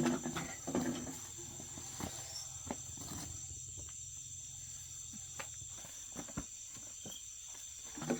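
Crickets trilling steadily in a high, even tone, with scattered light clicks and knocks.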